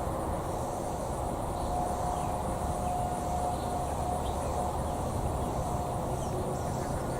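Outdoor ambience: a steady low rumble with insects buzzing high and steady, and a faint distant steady tone that swells and fades.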